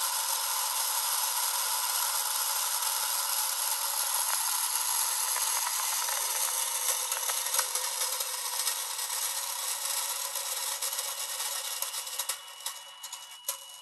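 Recorded engine sound of a scale model Mosquito's twin-engine sound module, played through a tiny speaker: a thin, hissy running noise with no bass. It fades as the engines wind down toward shutdown, with a few pops near the end.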